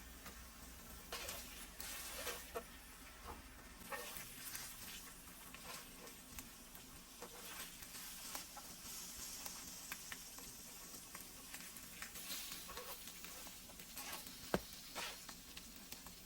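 Food frying faintly on a Presto 22-inch electric ceramic griddle: a soft sizzle broken by scattered small crackles and pops.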